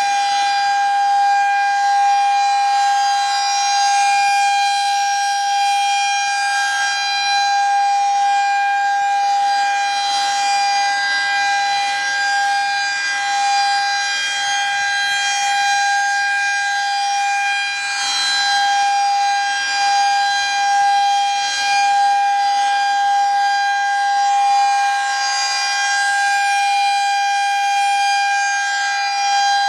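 Federal Signal 2001-SRN electromechanical warning siren sounding a steady, high-pitched tone: the alert signal of a siren test. Its loudness swells and eases gently as the rotating head sweeps past.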